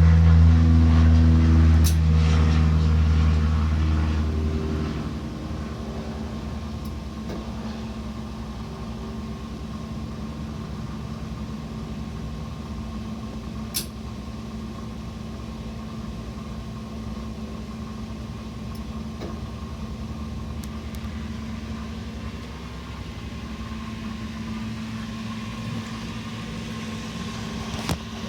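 Mercruiser 8.1 big-block V8 marine engine running, loud at first and dropping to a quieter steady run after about four to five seconds. There are a couple of brief clicks.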